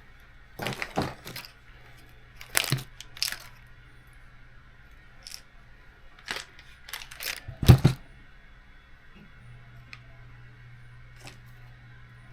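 Small metal screws and tools clinking and clattering on a workbench while the right screw is sought: a loose series of sharp clicks and knocks, the loudest about two-thirds of the way through.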